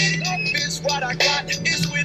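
Background music with a quick, steady beat.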